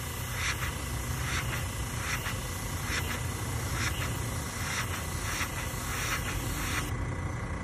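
Paasche airbrush hissing in short spray passes, about two a second, as solvent-based leather dye is laid down, over the steady low hum of the air supply running; the spraying stops near the end.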